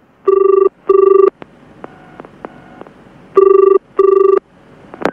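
Telephone ringing with a double ring: two pairs of short rings about three seconds apart. A few faint clicks follow near the end as the call is answered.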